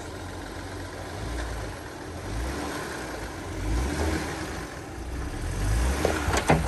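Jeep Gladiator Mojave crawling over rocky ground, its engine rumbling low and swelling with several bursts of throttle, over the crunch of tyres on rock. A couple of sharp knocks near the end.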